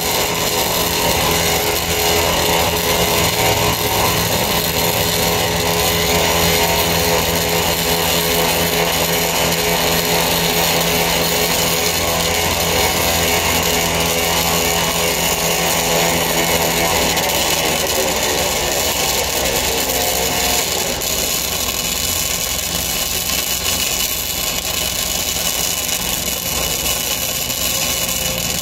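Flux-core wire-feed welding arc crackling steadily during a long continuous vertical bead on structural steel. Underneath it an engine runs at a steady hum that shifts in pitch about two-thirds of the way through.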